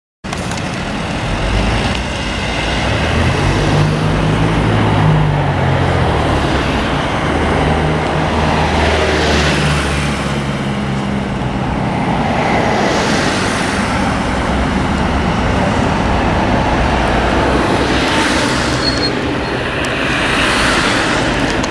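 Road traffic on a town street: cars and a van driving past close by, one after another, over a low engine hum.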